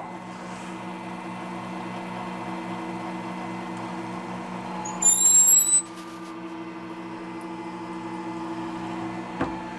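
Milling machine spindle running steadily while a 5/8-inch reamer cuts into a drilled hole in an aluminium plate. About five seconds in, a high squeal rising in pitch for about a second as the reamer works in the hole, and a short click near the end.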